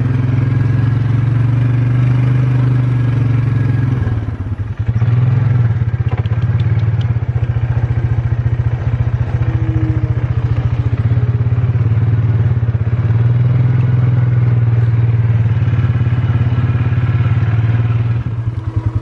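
Four-wheeler (ATV) engine running steadily at low speed while being ridden, with a brief dip in engine level about four seconds in.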